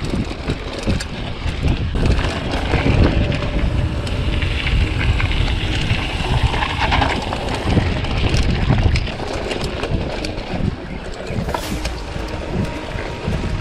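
Mountain bike descending a rough, loose dirt and gravel trail: a constant low rumble of wind buffeting the microphone and tyres running over the ground, with frequent small clicks and knocks as the bike rattles over stones and bumps.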